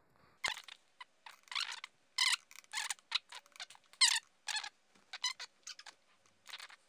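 Pen scratching on a paper card as figures are written, in a run of short, uneven strokes with brief pauses between them.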